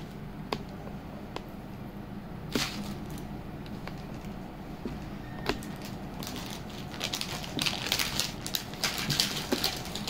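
Jewellery being handled: a few separate sharp clicks, then a busy run of crackling clicks and crinkles from about six seconds in.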